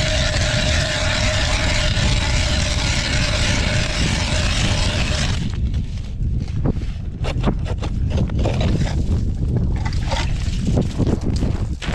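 A motor running steadily cuts off abruptly about five seconds in. Then come irregular crunching footsteps in snow, with wind rumbling on the microphone.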